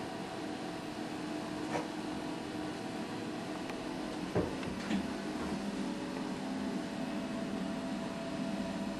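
Steady electrical hum with a few short knocks as toiletries and a spray can are handled at a bathroom cabinet, the sharpest about four and a half seconds in.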